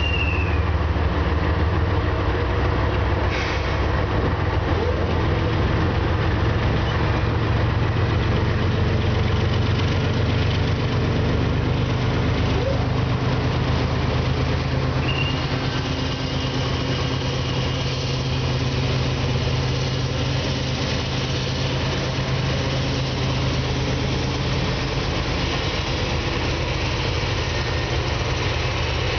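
Diesel engines of a CSX GE ES44DC and a GE C40-8 locomotive running as the two-unit consist moves slowly through the yard, a steady low drone.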